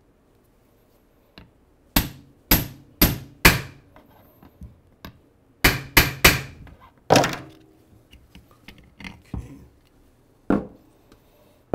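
Hammer blows on a seal-driver tool, tapping a new transmission input shaft seal into a BMW R90/6 gearbox housing. There are four quick taps, a pause, then three more, then one heavier blow that rings briefly. A lighter knock comes near the end.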